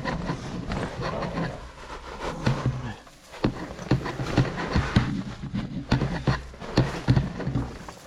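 A person panting and grunting with effort while crawling over rough lava rock, with repeated scrapes and knocks of body and gear against the rock.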